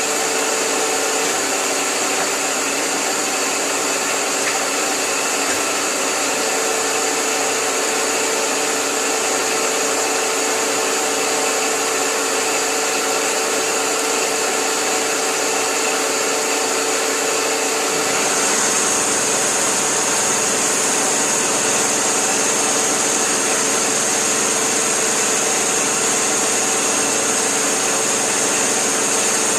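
Victor CNC lathe running, a steady machine whir with several steady tones over a high hiss. About eighteen seconds in the sound shifts: the high hiss grows stronger and the low hum drops away.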